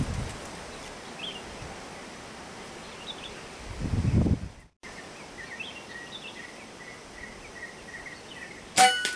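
Wind gusting on the microphone with short high bird notes, then near the end a single sharp air rifle shot followed by a brief metallic ring.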